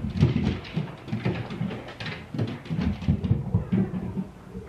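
Irregular thuds and bumps, several a second, coming through the ceiling from the apartment above, where the upstairs neighbor's dog is running around.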